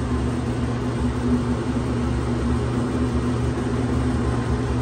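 Steady low mechanical hum of room air conditioning running, with one low tone held throughout.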